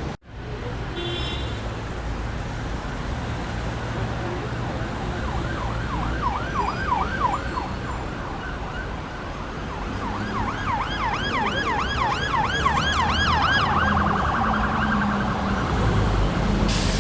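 Emergency vehicle siren in yelp mode, rapid rising-and-falling wails about four a second, heard twice over steady road traffic rumble. It switches to a faster warble near the end.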